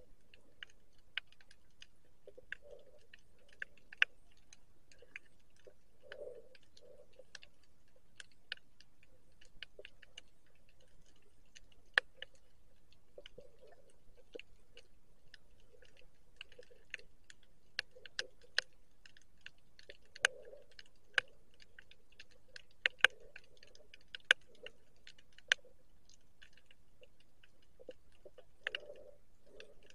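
Underwater reef sounds: scattered, irregular sharp clicks and snaps, a few much louder than the rest, with soft low muffled thumps at intervals between them.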